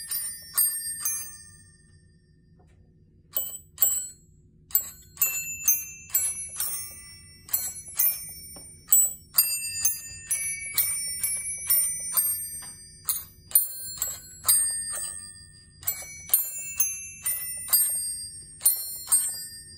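Automatic holiday bell-chime toy playing a carol tune: small hanging brass bells struck one note at a time, each ringing on briefly. About a second and a half in the notes stop for roughly two seconds, then the tune starts again.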